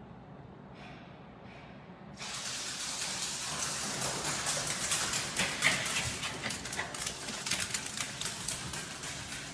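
Rushing, splashing water starting about two seconds in, dense with crackling splashes.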